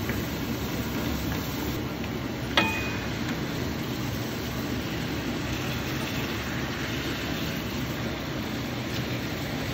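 Food cooking in a stone-coated wok, stirred with a wooden spatula, over a steady low rumble. A single sharp metallic clink rings out about two and a half seconds in, around when raw chicken pieces go into the pan.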